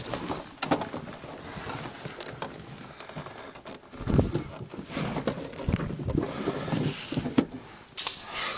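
A person crawling over loose dumped bricks in a cramped tunnel: bricks clinking, knocking and scraping, with dull thumps of knees and hands about four and six seconds in.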